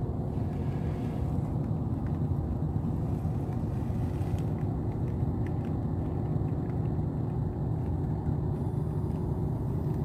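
Steady low background rumble with no distinct events.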